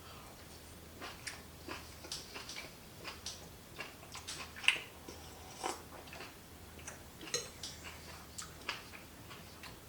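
Eating utensils clinking and tapping irregularly against a bowl of soup, light clinks with a brief ring, the sharpest one about halfway through.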